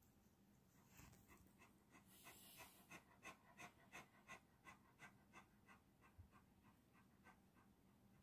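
Tabby cat grooming itself: faint, rhythmic licking, about three to four licks a second, starting about a second in and tailing off near the end.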